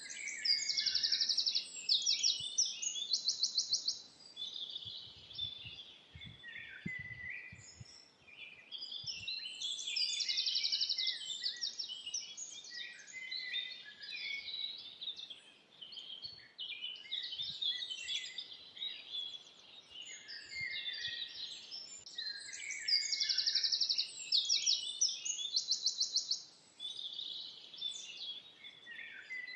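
Several forest songbirds singing together, a dense mix of high chirps and whistles, with a fast trilled phrase heard three times.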